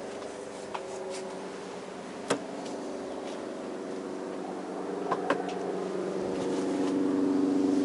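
Helicopter flying over, a steady drone of rotor and engine that grows louder toward the end. A few short sharp clicks sound along the way.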